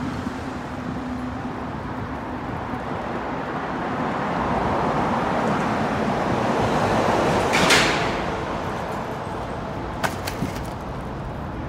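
Steady rush of wind and passing road traffic, swelling to a peak with a short hiss about eight seconds in, then easing off, with a few light clicks near the end.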